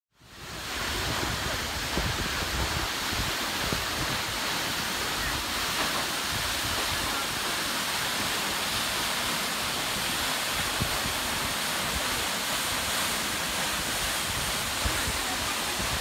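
Tall waterfall falling down a rock face onto rocks and into its plunge pool: a steady, unbroken rush of water that fades in during the first second.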